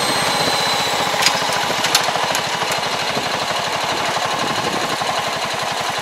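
Small farm tractor's diesel engine running steadily with a fast, even pulse while it pulls a rear-mounted fertilizer applicator, with a couple of light clicks about a second and two seconds in.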